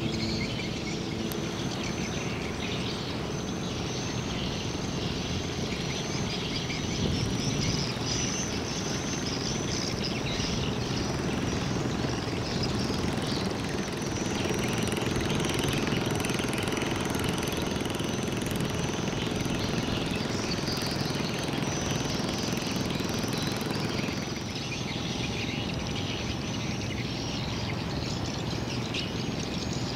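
Steady rumble and rushing wash of a large cargo ship passing close by, with a high chirping repeating rapidly from the riverbank through the first half.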